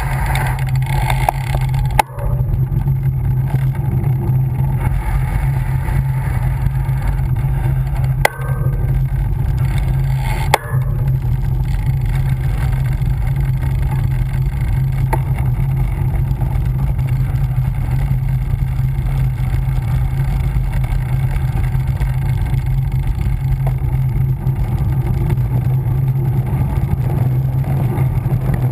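Steady, loud wind and road rumble on a bicycle-mounted camera's microphone during a fast road descent, with three sharp knocks in the first half.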